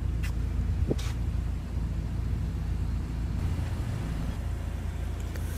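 Steady low background rumble, with a couple of faint clicks in the first second or so.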